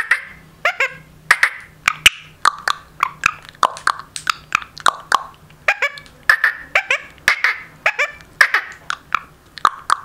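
Indian ringneck parakeet making a rapid run of short clucking calls and beak clicks, about three a second, without words.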